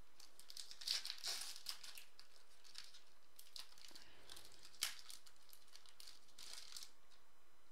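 Foil wrapper of a 2015 Topps Chrome football card pack crinkling and being torn open by hand, in irregular short crackly bursts, with one brief sharp crack a little past the middle.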